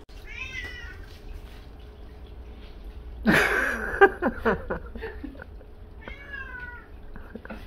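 Domestic cat meowing three times: a short call about half a second in, a louder, longer and harsher one about three seconds in, and another short call about six seconds in.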